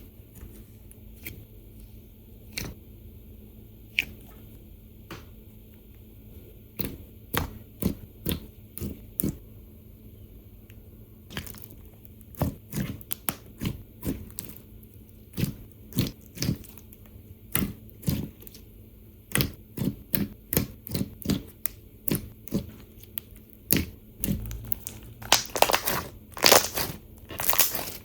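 Hands squeezing and poking a bead-filled slime, giving sharp clicks and pops. They come a few seconds apart at first, then more often in clusters, with a louder, denser run of crackling near the end.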